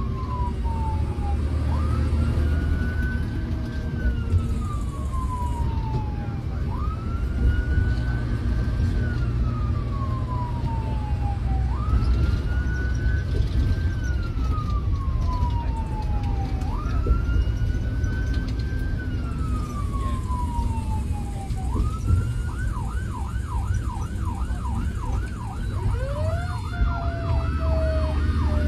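Fire engine's siren heard from inside the cab while driving. It wails in slow rising-and-falling cycles about every five seconds, switches to a fast yelp of about three sweeps a second roughly three-quarters of the way through, and starts a new wail near the end. The truck's engine and road noise rumble underneath.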